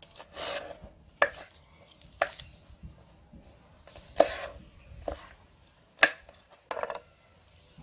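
Kitchen knife cutting green chillies on a wooden cutting board: about seven separate cuts at an uneven pace, each a sharp tap of the blade on the board.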